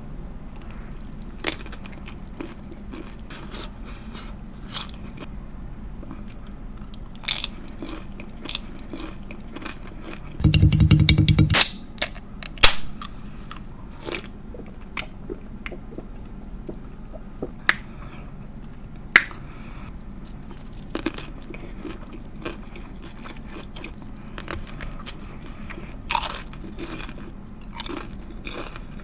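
Close-miked eating of a pickle sandwich: crunchy bites and wet chewing, with scattered sharp crackles. About a third of the way in there is a loud, low-pitched burst lasting about a second.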